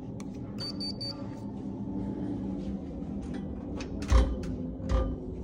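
Steady mechanical hum with several low tones, a short high electronic beep about half a second in, and two dull thuds near the end.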